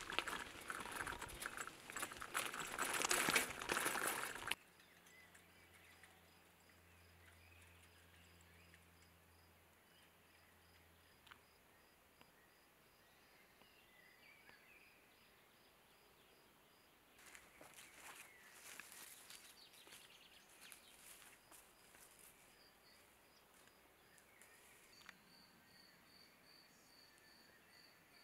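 A loud crackling rustle for about the first four and a half seconds, then faint, evenly pulsed chirping of field insects. A second, softer spell of rustling comes about two-thirds of the way through.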